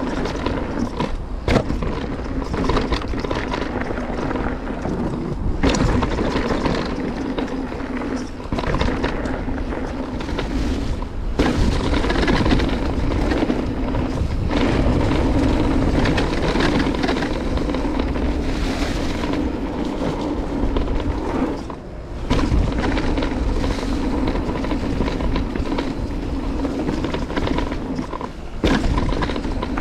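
Cube Stereo Hybrid 160 e-mountain bike ridden over a rough trail: steady tyre and trail noise with knocks and clatter from the bike over bumps, including the rattle of its Bosch Performance CX motor, a known trait of that drive unit.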